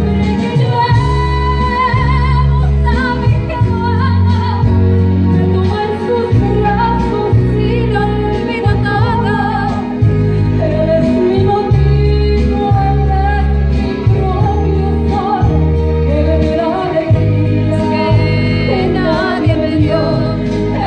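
A woman singing a Spanish-language romantic ballad live into a handheld microphone, amplified through a PA, over instrumental accompaniment with a steady bass line. Her held notes waver with vibrato.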